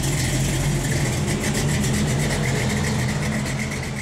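An engine idling steadily, with a rapid even pulse.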